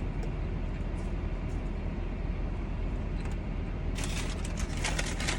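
Steady low rumble of a car interior. About four seconds in, a run of sharp crackles and clicks starts over it.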